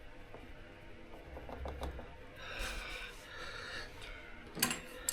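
A person breathing out, long and audible, with a few light clicks from hand tools and a sharper click near the end.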